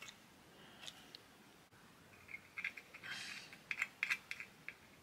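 Faint scratching and light clicks of a small hand tool working against a multimeter's circuit board. They come in a few short runs from about two seconds in.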